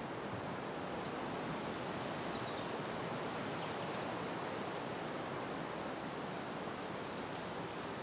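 Steady outdoor forest ambience: an even rushing hiss with no distinct events.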